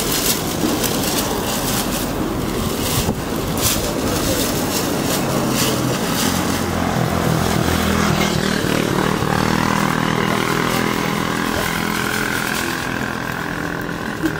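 An engine droning and shifting in pitch through the middle, over a steady rushing noise with crackles.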